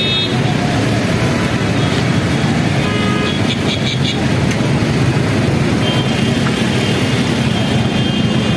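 Heavy, slow city traffic: the steady rumble of many car, motorcycle, auto-rickshaw and bus engines running. A few short high beeps come about three to four seconds in.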